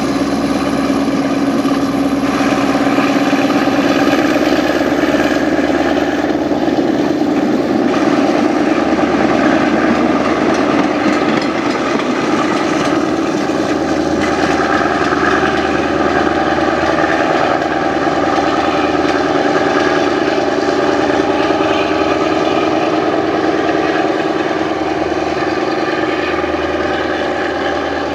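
Diesel train engine running steadily, its pitch sagging a little near the middle and then climbing somewhat higher.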